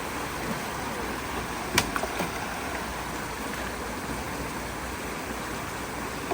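Fast, rain-swollen creek water rushing steadily through and around a road culvert. About two seconds in there is one sharp knock, the loudest sound, followed by a couple of smaller clicks.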